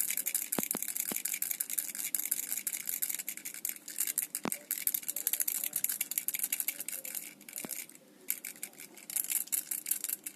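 New Remax Flinc 5000 mAh power bank being shaken, something loose inside rattling in a rapid, continuous run of small clicks, with a short pause about eight seconds in.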